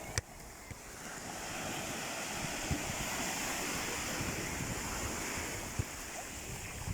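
Sea surf washing onto the shore, swelling up about a second in and slowly easing off near the end, with a sharp click just after the start.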